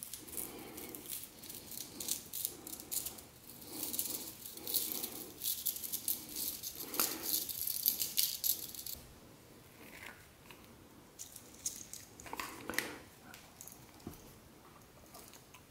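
Fine copper wire being pulled and torn out of a small blue plastic spool: a dense crackling rattle of wire strands for about nine seconds, then a few scattered clicks and knocks of handling.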